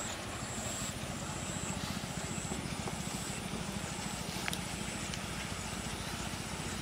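A steady, fast low throb like a distant engine running, under a faint high chirping that repeats about twice a second; a single light click about four and a half seconds in.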